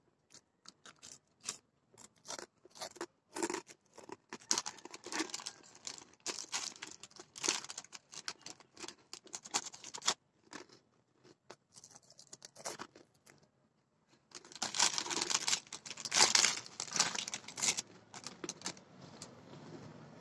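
Thin clear plastic snack bag crinkling as a hand rummages in it for fish crackers: scattered crisp crackles, a pause of a few seconds, then a dense spell of crinkling about fourteen seconds in.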